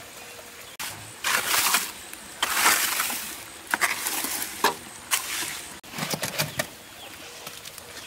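Scraping of a tool being drawn across wet cement mortar to level and smooth it, two long strokes followed by several shorter ones. Near the end, a shovel scrapes up mortar.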